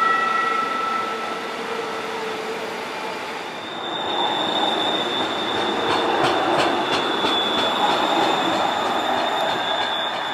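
Houston METRORail light rail train running past with its wheels squealing on the rails: high steady squeal tones in the first couple of seconds, then a steady high-pitched squeal from about four seconds in over the running noise, with a few clicks in the middle.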